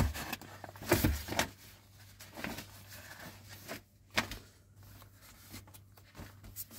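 Paper rustling as the pages of a printed instruction booklet are handled and turned over, in a few short rustles, the loudest about a second in.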